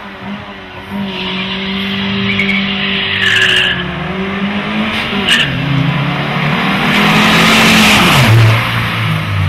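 Car engine held at high revs with its tyres screeching for a few seconds, then a car rushing past close by, its engine note dropping as it goes.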